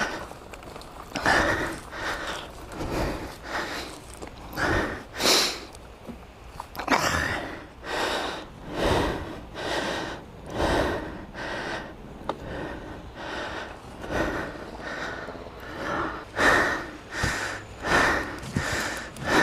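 A man breathing hard and panting, about one heavy breath a second, out of breath from repeatedly kickstarting a stalled dirt bike.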